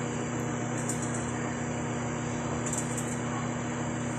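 Microwave oven running, a steady low hum with a couple of faint light ticks.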